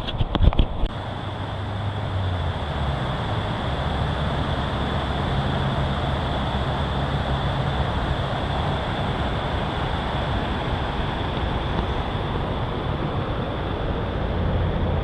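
Creek water rushing steadily, after a few sharp clicks in the first second.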